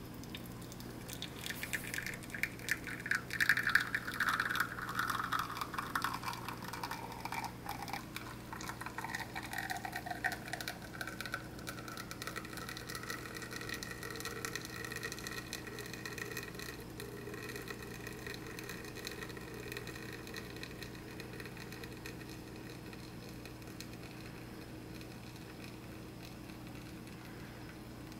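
Espresso from a Flair Classic manual espresso maker streaming into a small glass cup: a splashing patter with a tone that falls in pitch over the first ten seconds or so, then a quieter, steadier trickle that fades toward the end.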